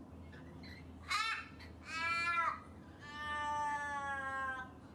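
Three high-pitched calls from a voice: a short one about a second in, a second that rises and then falls, and a long, slowly falling one near the end.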